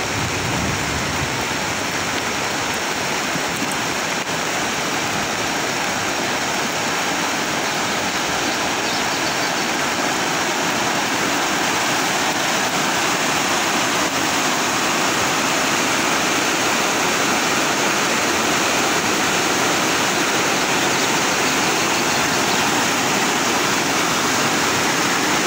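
Swollen, muddy river in flood rushing over rocks and rapids, a steady unbroken sound of churning white water.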